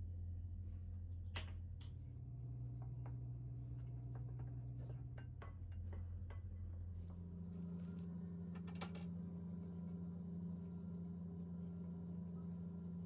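Fingers mixing yeast liquid into flour in a glass bowl: faint scattered clicks and scrapes, over a low steady hum that changes pitch twice.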